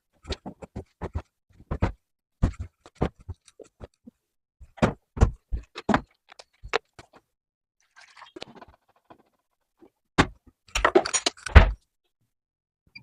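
An irregular run of sharp clicks and knocks, some with a heavy thud, followed about eleven seconds in by a short dense clatter.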